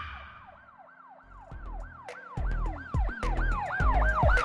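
Siren-like yelp sound effect: a tone that rises and falls about three times a second. Deep bass hits come in under it about a second and a half in.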